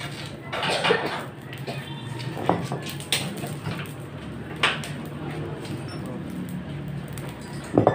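Homemade electric blower running with a steady low hum as it forces air into a burning stove, with a few brief sharp sounds over it.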